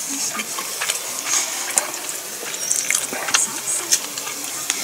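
Someone eating: chewing, with small scattered clicks of chopsticks against dishes.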